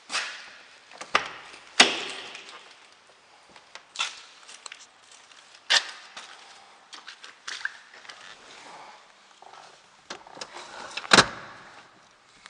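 A series of sharp knocks and bangs, about seven spread irregularly, each with a short ringing tail. The loudest are about two seconds in and near the end.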